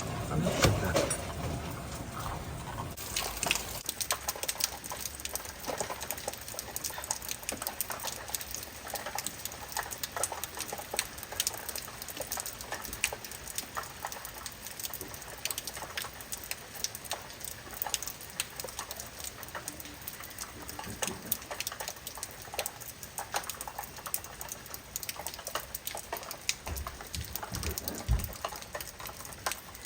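Heavy rain falling, with many close, separate drops striking a hard surface in a dense, continuous crackle. A low rumble runs through the first few seconds.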